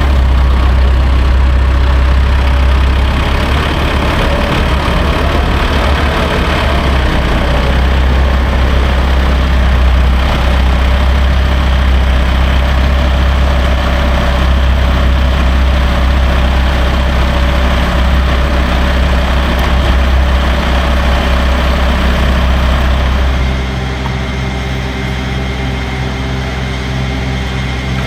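Loader tractor's engine running steadily while feed is being made. About 23 seconds in the sound drops a little and settles into a steadier, higher hum.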